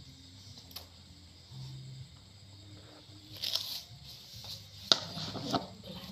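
Handling noises as squid and kitchen scissors are moved about and put down: rustling, with one sharp click just before five seconds in, the loudest sound.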